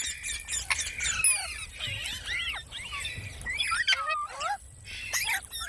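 Green parrot calling: a quick run of chirps, whistles and squawks that rise and fall in pitch, with a brief lull a little after four seconds in.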